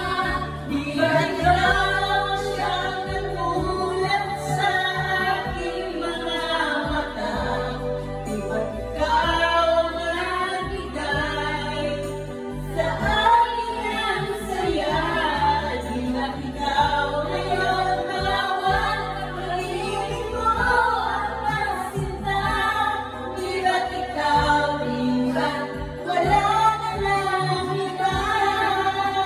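Women singing a Tagalog love song into karaoke microphones over a karaoke backing track, the voices amplified through the room's speakers.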